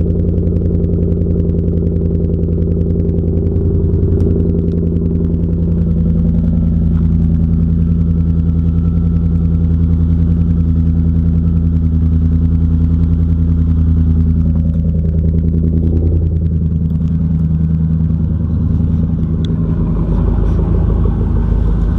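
A 2013 Ford F-150's 5.0L Coyote V8 idling steadily through its 3-inch Roush catback, just after a cold start. The 2004 Silverado's 5.3L V8 idles alongside through its straight pipe with no muffler, and comes forward near the end.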